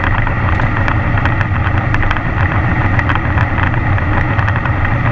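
Motorcycle engine running steadily at cruising speed, with wind noise.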